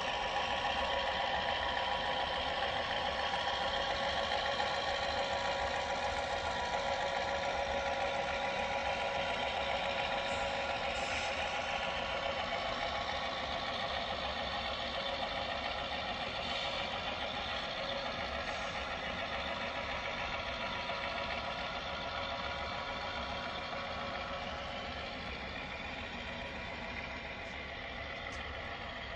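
O scale Atlas GP7 model diesel locomotives running with LokSound sound decoders: a recorded diesel engine sound playing steadily through the models' onboard speakers, gradually fainter as the train passes.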